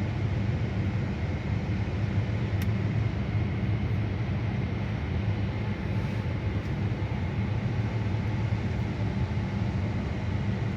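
Car engine idling steadily, with a short click about two and a half seconds in; the engine has a misfire on cylinder 2.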